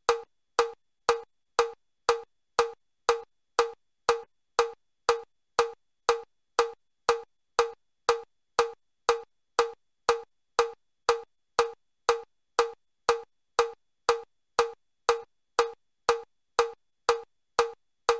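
Metronome clicking steadily at about two beats a second (120 beats per minute), the stepping pace for level 4 of the Chester step test. Each beat is a short woody click with a clear pitch.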